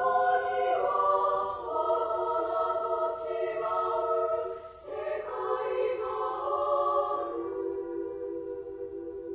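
Women's choir singing sustained chords in several parts, briefly breaking between phrases and growing softer in the last couple of seconds.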